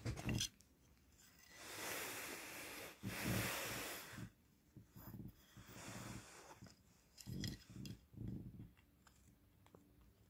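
A kitten tussling with a wooden play stick on a cushion: two long breathy rustles a couple of seconds in, then a few soft bumps and scuffs.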